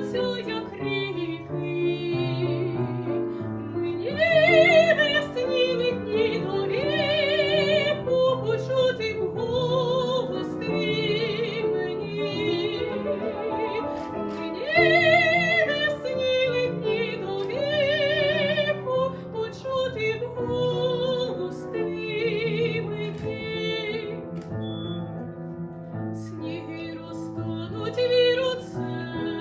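A woman singing in a classical, operatic style with wide vibrato, with piano accompaniment. Her voice swells to loud high held notes about four seconds in and again around fifteen seconds.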